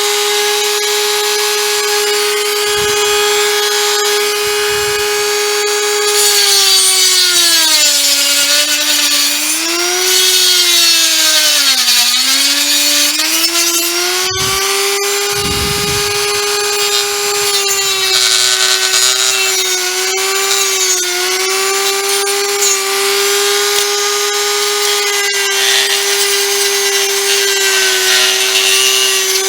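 A Dremel rotary tool runs with a steady high whine as it grinds and sands down a plastic switch housing. Its pitch sags twice in the middle as the bit bites into the plastic, then climbs back, and a scraping hiss rises whenever the bit is in contact.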